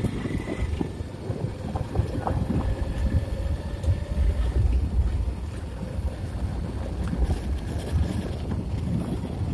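Wind buffeting the microphone of a camera on the move, a steady gusty low rumble, with faint steady tones faintly audible beneath it.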